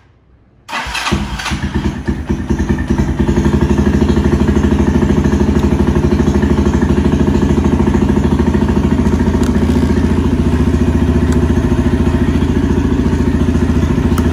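Bashan Motomax 250's carbureted four-stroke engine cold-started with the choke held: it cranks and catches about a second in, fires unevenly for a couple of seconds, then settles into a steady idle.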